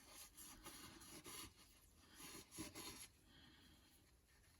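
Faint rubbing and scraping of emery cloth and a rag on a metal hydraulic cylinder part, scouring off grime. The strokes come in short runs over the first three seconds, then die down.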